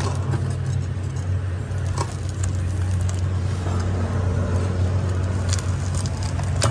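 Engine running steadily with a low, even drone, with a few light knocks on top.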